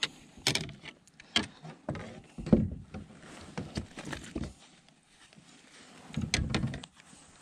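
Handling noise as a small fish is swung in on the line and grabbed in a small boat: irregular clicks, knocks and rustling of a jacket sleeve, with heavier thumps about two and a half seconds in and again near the end.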